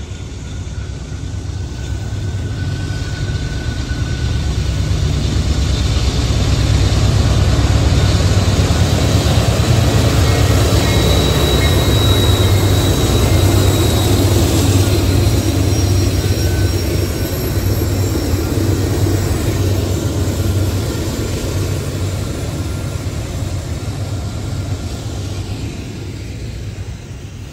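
Norfolk Southern diesel locomotives working hard up a grade, their engines rumbling under load and growing louder to a peak as they pass, then the double-stack container cars rolling by with a steady rumble and a few thin high wheel squeals as the sound slowly eases off.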